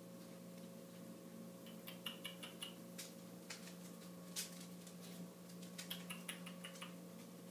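A puppy's claws clicking and ticking irregularly on a hardwood floor as it walks about, over a steady low hum.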